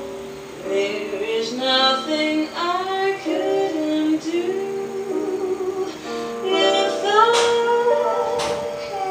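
Background music: a song with female singing over plucked strings, ukulele or guitar.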